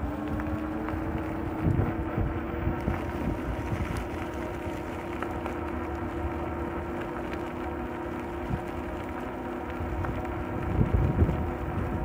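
E-bike's electric assist motor whining steadily as the bike rides along, its pitch rising slightly in the first second. Wind buffets the microphone, with the strongest gusts about two seconds in and near the end.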